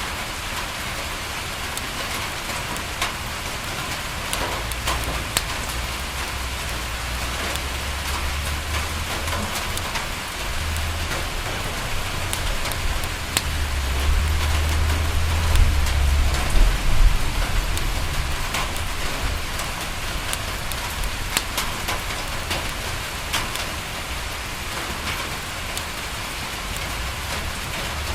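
Steady rain pattering on a window glass, with scattered sharp crackles from a wood fire. A low rumble builds and fades in the middle, loudest a little past halfway.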